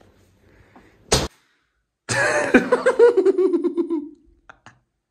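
A single sharp smack about a second in, then a burst of a man's laughter, quick pulses falling in pitch, lasting about two seconds.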